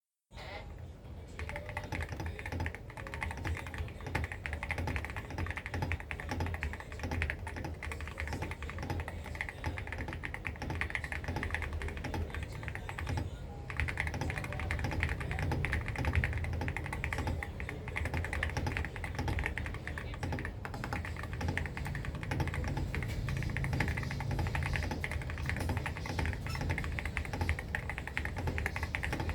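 Everglide AE68 Pro mechanical keyboard with PBT keycaps being typed on fast and steadily, a dense run of key clacks with a short lull about halfway through.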